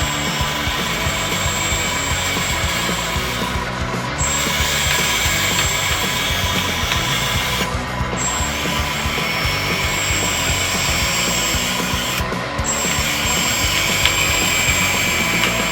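Electric motor and hydraulic pump of a 1/14-scale hydraulic RC bulldozer whining steadily, cutting out briefly about every four seconds, over background music.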